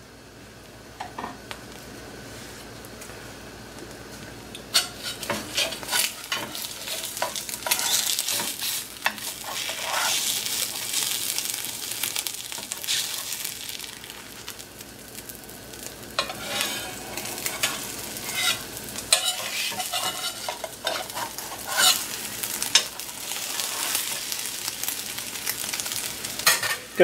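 Omelette frying in a skillet with a soft sizzle. From about five seconds in, a spatula scrapes and knocks against the pan again and again as the omelette is lifted and folded in half.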